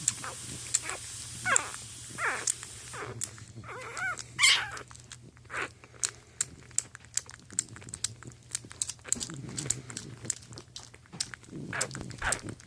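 Newborn English bulldog puppies whining and squealing in short cries that fall in pitch, the loudest about four and a half seconds in. After that comes a run of many quick small clicks, with a low steady hum underneath.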